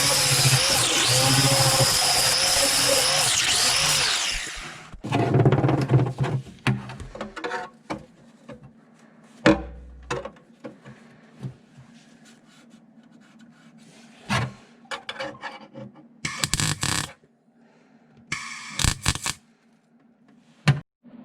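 Background music for about the first four seconds, then workshop sounds of metal panels and tools being handled: scattered knocks, taps and clicks, and two short harsh bursts of noise near the end, typical of welding tacks on a car body patch.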